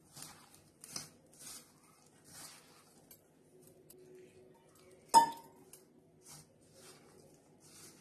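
A hand rubbing and mixing flour, chopped onion and spices in a stainless steel bowl: soft scraping rustles, with one sharp metallic clink against the bowl about five seconds in.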